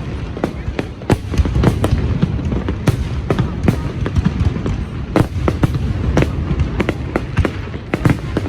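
Fireworks going off in a show, with many sharp bangs and crackles at irregular intervals, several a second, over a steady low rumble.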